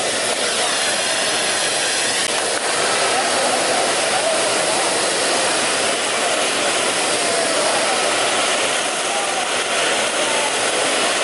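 Numatic Henry Petcare canister vacuum running steadily, sucking up a test mess of flour, breakfast cereal, cat litter and pet hair from carpet.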